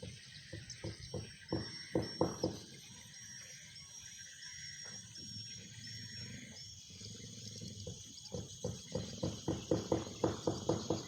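An animal making rapid, rough, pulsed sounds in two runs, about four or five pulses a second, one near the start and one near the end. A high, evenly repeating chirping runs behind it.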